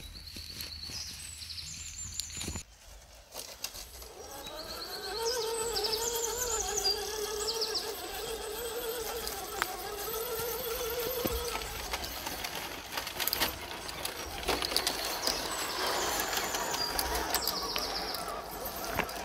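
Small electric motor and gears whining, the pitch wavering up and down as the throttle changes, heard for several seconds from about four seconds in, typical of a scale RC crawler. Short high chirping notes and scattered clicks come and go around it.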